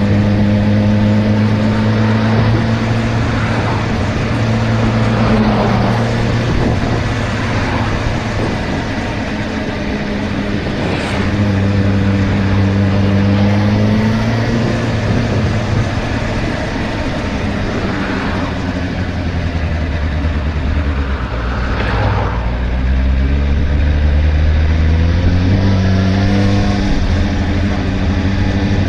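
Suzuki GSR 600's inline-four engine running under way, its note mostly steady; the revs drop about twenty seconds in, then climb again.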